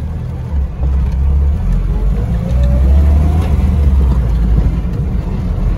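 Lada Niva driving along a rough dirt field track, heard from inside the cabin: a steady low engine and road rumble, with the engine note rising about two seconds in.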